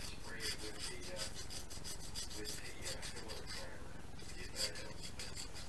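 A fine file rasping in quick, short strokes, about five a second, against the cut edge of a small model part to smooth it. The strokes pause briefly a little before four seconds, then start again.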